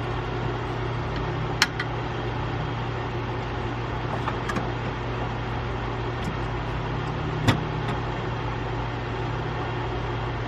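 Steady low mechanical hum with two sharp clicks, one about one and a half seconds in and one near three-quarters of the way through.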